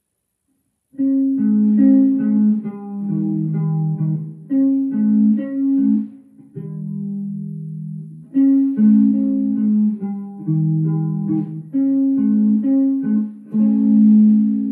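A plucked guitar playing a melody of single notes and chords. It starts about a second in and pauses briefly a couple of times.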